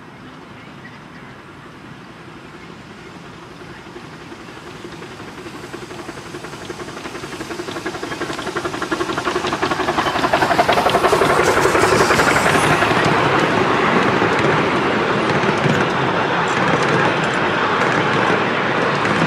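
Miniature 2-4-2 steam locomotive 'Sandy River' approaching and passing with a train of passenger coaches. The exhaust beats and rail noise grow steadily louder over about ten seconds, peak with a hiss of steam as the engine goes by, then the coaches rattle past on the rails.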